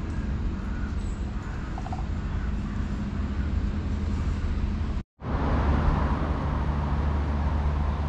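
Steady outdoor street background with a low traffic rumble. The sound cuts out for a moment about five seconds in and comes back a little louder.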